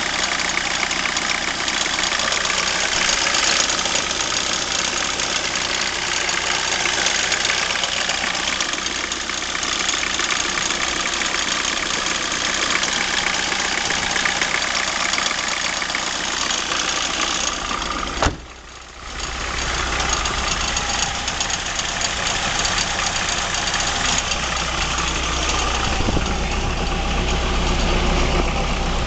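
BMW E36 318tds four-cylinder turbodiesel idling steadily. The owner hears an annoying noise from the front of the engine at idle, sometimes, that he has not traced. About two-thirds of the way in there is a sharp click and the sound drops briefly, then returns with a stronger low hum.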